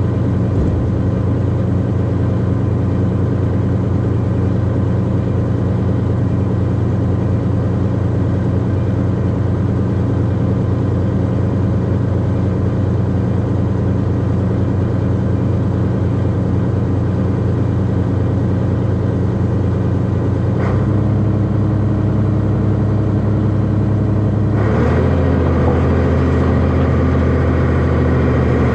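Heavy diesel engine running steadily under load, with its speed stepping up about 21 seconds in and again about 25 seconds in.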